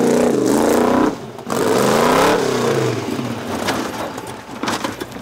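Formula offroad buggy's engine revving hard up a steep dirt hill climb. It drops out briefly about a second in, then revs again. About three seconds in the engine note fades into scattered knocks and scrapes as the car tumbles over.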